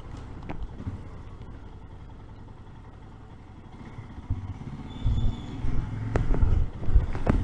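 Royal Enfield Himalayan's single-cylinder engine running at low speed through town, quieter in the middle and picking up again about two-thirds of the way through.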